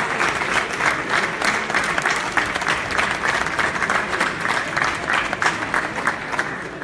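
Audience applauding, a dense mass of clapping that thins out and dies down near the end.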